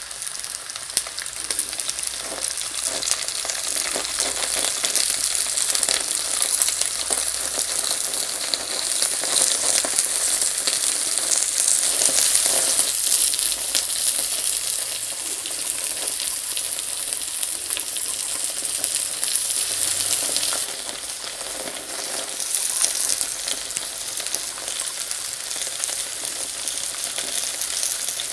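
Meat sizzling on a hot charcoal grill: a steady hiss with fine crackles, easing off a little about twenty seconds in.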